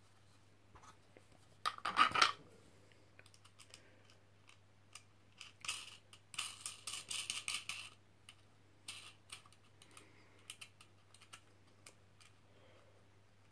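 Hand-handling clicks, scrapes and rustles of a DIY night-vision scope tube being press-fitted back on over the camera board, loudest about two seconds in, with a dense run of clatter from about six to eight seconds and scattered single clicks between.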